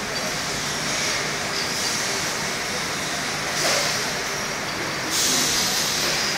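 Steady factory-floor machinery noise, with two bursts of compressed-air hiss: a short one about three and a half seconds in and a longer one from about five seconds in.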